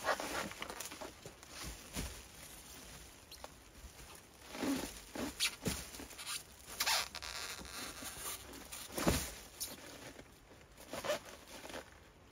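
Clear plastic stretch wrap crinkling and crackling in irregular bursts as gloved hands pull it taut and press it around wooden poles.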